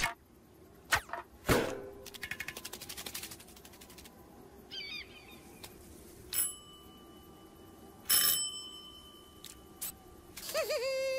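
Cartoon sound effects in quick succession: two sharp swishing hits, then a fast rattling trill and some short squeaky chirps. A bell-like ding comes about six seconds in and rings on with steady tones. Another hit follows near eight seconds, and a wavering buzz starts near the end.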